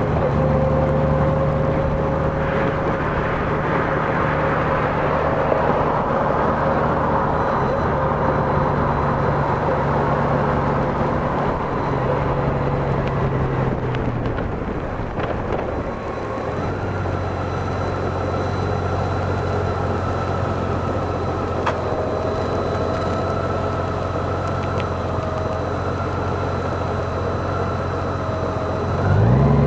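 Honda Gold Wing motorcycle engine running at a steady cruise over road noise. Partway through, the engine note drops and then holds steady at a lower pitch. Near the end the revs start to climb again.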